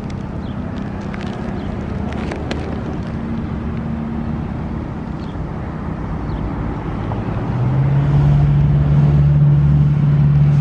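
Federal Sign & Signal STH-10A siren's rotor spinning down after a test: a low, steady growl, typical of this model's long wind-down. About three-quarters of the way in, a louder low drone swells up.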